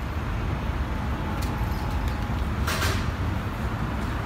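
Street traffic at a busy city junction: a steady low rumble of passing vehicles, with a short hiss a little under three seconds in.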